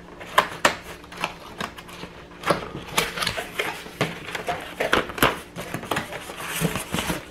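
Cardboard box being opened by hand: fingers picking at packing tape and pulling the cardboard flaps open, a run of irregular sharp taps, scrapes and rustles.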